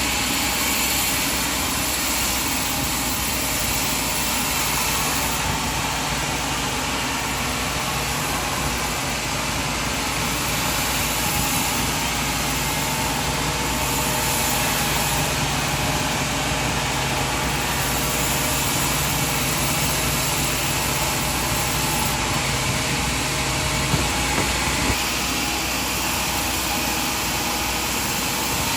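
Sawmill machinery running steadily, with a low engine hum that sets in after a few seconds and drops away near the end, and a brief knock shortly before that.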